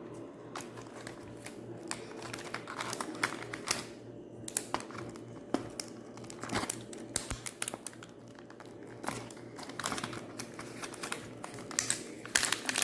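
Plastic wrapping crinkling and tearing as it is handled, a string of short crackles that grows busier near the end.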